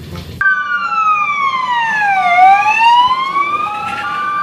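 Fire engine sirens starting suddenly about half a second in: one slow wail sliding down in pitch and then back up, over a two-tone hi-lo siren switching between two pitches.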